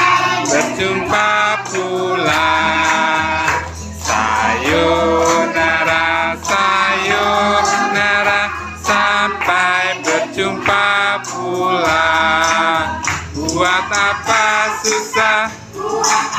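Music with singing: a song with plucked-string accompaniment, sung throughout.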